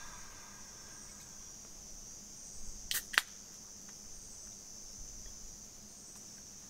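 Steady high-pitched chirring of insects, with a sharp crack and short hiss about three seconds in, typical of a drink can's pull tab being opened.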